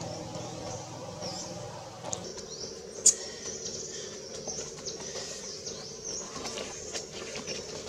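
High-pitched chirps and squeaks, with rustling and scattered clicks of dry leaves and one sharp click about three seconds in. A low hum runs underneath for the first two seconds, then stops.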